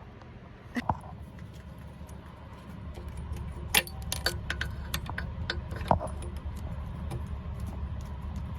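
Sharp metallic clicks and light rattling as the loose shaft of a Cummins ISX turbocharger is wiggled with pliers, the sign of excessive shaft play in a failed turbo. A steady low rumble runs underneath and grows louder about three seconds in.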